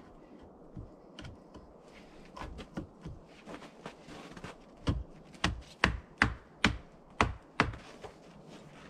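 A hand tool striking a log in a quick run of about seven sharp knocks, roughly two and a half a second, starting about halfway through, after a few lighter taps and rustles.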